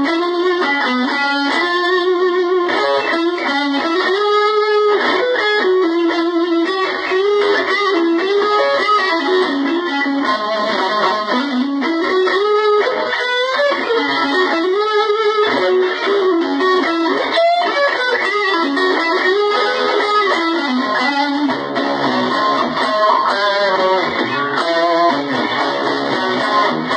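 Fender Stratocaster electric guitar played through a Roland Blues Cube Artist amplifier: a continuous lead line of single notes with string bends and vibrato, growing fuller toward the end.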